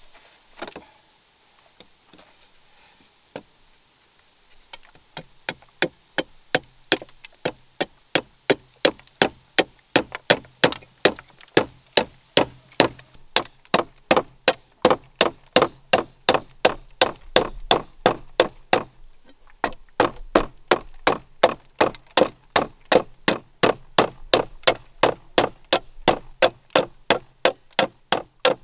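Large knife chopping and splitting a strip of bamboo held against a wooden block, shaping a bamboo spoon: steady sharp woody blows about two and a half a second, starting about five seconds in, with a brief pause about two-thirds of the way through.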